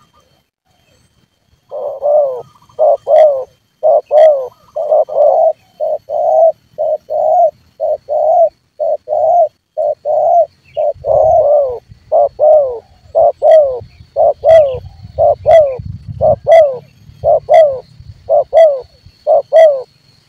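Spotted dove cooing over and over in a steady rhythmic series of coo phrases, starting about two seconds in and running on without a break.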